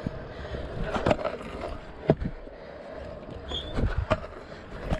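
Stunt scooter's wheels rolling on smooth concrete with a steady rumble, broken by a few sharp clacks, the loudest about two seconds in.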